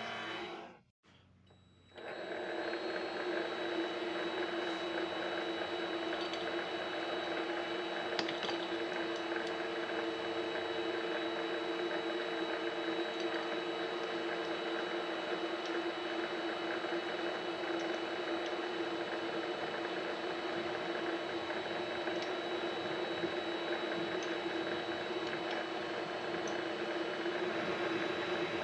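Vevor MX 400 mini lathe running steadily, its motor giving a constant whine, with a few faint ticks, while steel rod stock is being worked.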